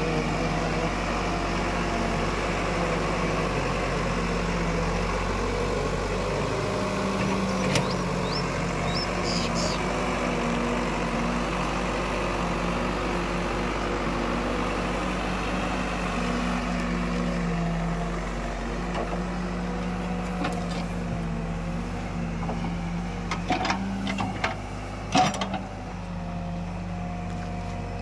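Escorts Digmax backhoe loader's diesel engine running steadily while the machine works earth, its pitch rising and falling as the hydraulics take load. There are a few sharp knocks near the end.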